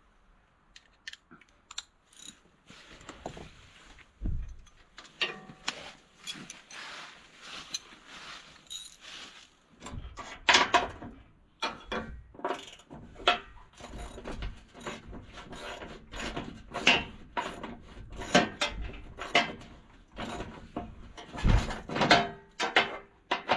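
Hand tools clinking and loose metal knocking while the last bolt is worked off and the small steel rear fender of a 1949 Allis-Chalmers G tractor is taken off. The clicks start sparse and get busier and heavier about ten seconds in, with a few dull thuds.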